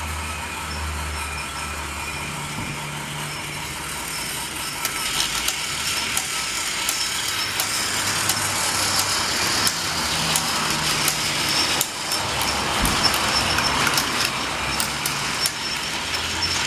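Battery-powered Trackmaster RC Thomas toy locomotive running on plastic track, its small electric motor and gearbox whirring steadily. From about five seconds in, frequent sharp clicks join the whir as the wheels and trucks rattle over the track.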